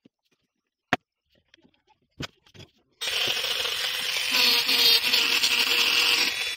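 Two sharp knocks, then about halfway through a handheld rotary tool with a small burr bit starts up and runs steadily, grinding and carving into wood with a whine.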